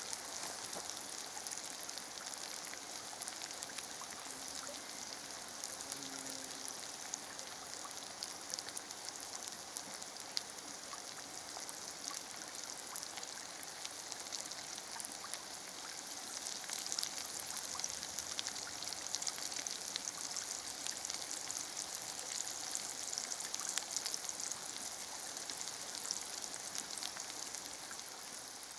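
Oil sizzling and crackling in a pan around frying spelt patties: a steady hiss full of fine, quick pops.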